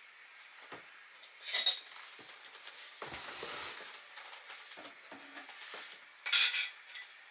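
Metal hardware of a wooden Kermit camp chair clinking twice, in short rattles about five seconds apart, with quieter rubbing and handling of the parts between.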